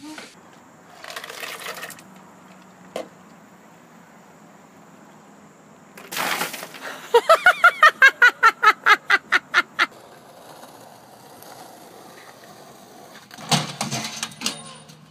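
A child's voice in a quick run of about a dozen loud, evenly spaced cries, after a short burst of noise. Near the end comes a cluster of sharp knocks.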